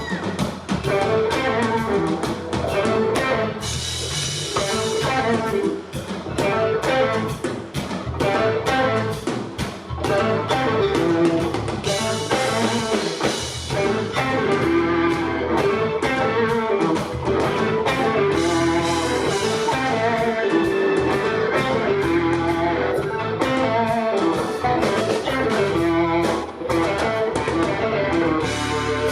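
Live blues-rock band playing an instrumental passage: an electric guitar plays lead lines over a drum kit.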